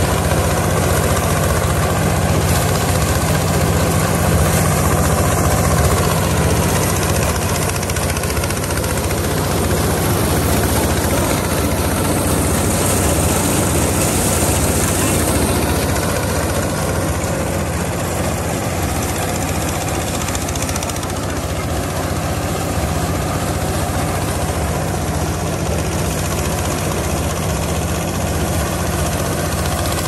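Portable rice thresher running steadily under load, its small engine driving the threshing drum through a long belt: a constant low engine hum under the rushing noise of rice straw being threshed and blown out.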